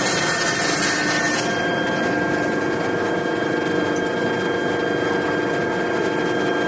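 Metal roll forming machine running steadily with a constant multi-tone machine hum. A high hiss over it drops away about a second and a half in.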